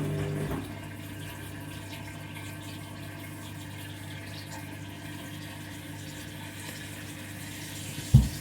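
Washing machine: its motor hum stops about half a second in, then water runs steadily into the machine as it fills. A single loud low thump comes near the end.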